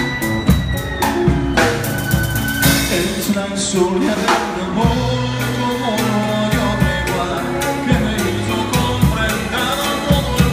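Live band of violin, two acoustic guitars and a drum kit playing a song, with the drums keeping a steady beat under the violin and guitar melody.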